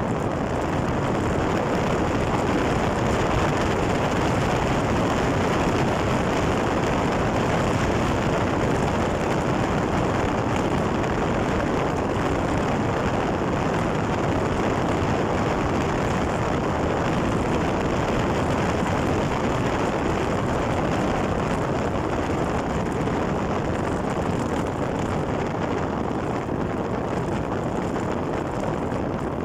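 Steady wind noise buffeting the microphone on a bicycle rolling fast down a concrete road, with no engine tone in it.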